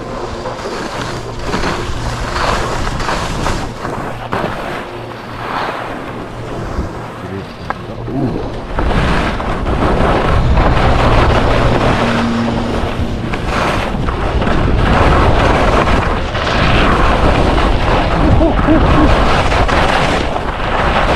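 Black Crows Atris skis carving at speed on hard-packed groomed snow, the edges scraping through each turn in surges every second or two, with wind buffeting the microphone. The noise grows louder about nine seconds in.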